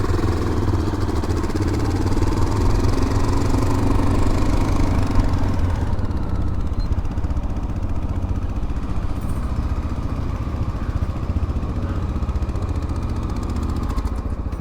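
Motorcycle engine running steadily at low revs, close to the microphone, with a slight rise and fall in pitch in the first few seconds.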